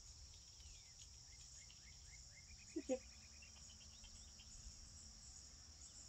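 Steady chorus of crickets or similar insects, faint, with a thin run of quick chirps climbing in pitch in the middle. A brief two-part low voice sound comes about three seconds in.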